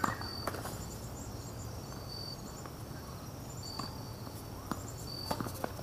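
Tennis rally on a hard court: sharp knocks of racket strikes and ball bounces, irregularly spaced a second or so apart. A short, high insect chirp repeats about every second and a half behind them.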